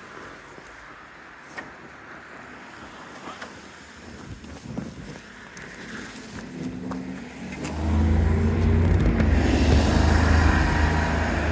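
A few light clicks in near-quiet, then about eight seconds in the engine of an Optare Solo SR single-deck bus comes in loud and low and keeps running steadily as the bus moves off.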